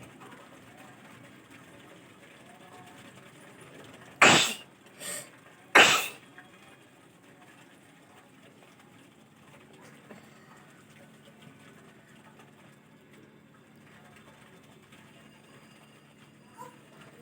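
A woman sneezing twice, about a second and a half apart, with a shorter, fainter sound between the two.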